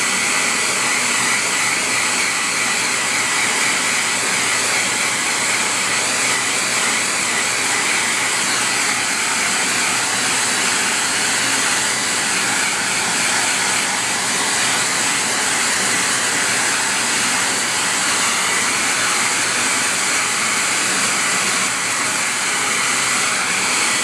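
Handheld hair dryer running steadily at close range: a loud, even rush of air with a thin steady whine.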